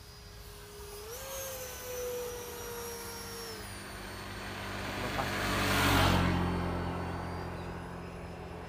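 70 mm electric ducted fan of a scratch-built RC jet whining in flight. Its pitch steps up about a second in as throttle is added and eases back a little later. The whine and a rush of air then swell to the loudest point about six seconds in, and fade.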